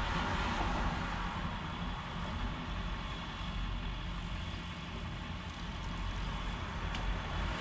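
Steady low background rumble with one sharp click near the end.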